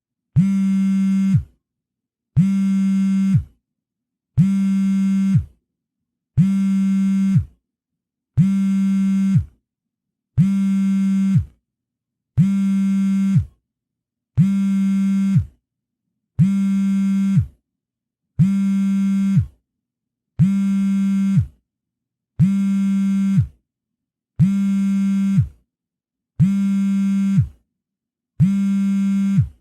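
Mobile phone vibrating in a steady pattern: fifteen low buzzes, each about a second long, one every two seconds.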